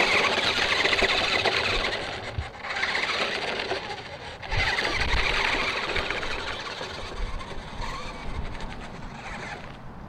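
Ruko 1601AMP2 1:10 amphibious RC truck's electric drive whirring with its tyres crunching over gravel, in three throttle bursts, then growing fainter as the truck drives away onto grass.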